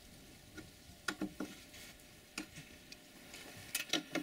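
Scattered light metallic clicks and taps as the UAZ Patriot's wiper arm mounting bolt and washers are fitted, with a few quick clicks close together near the end as a ratchet wrench goes to work on the bolt.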